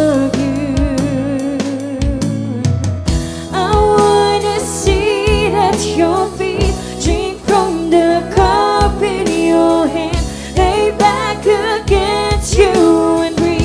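Live worship band with a lead singer performing a slow gospel song: long sung notes with vibrato over steady drum kit strokes.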